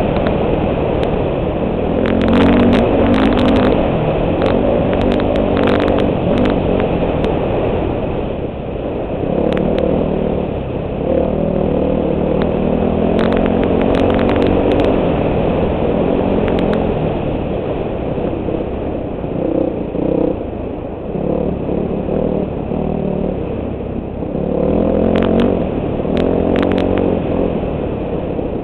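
Four-stroke dirt bike engine heard from the rider's helmet camera at race speed, revving up and dropping back again and again as the throttle is worked over rough desert ground, with wind rushing over the microphone. Scattered sharp clicks and knocks break in throughout.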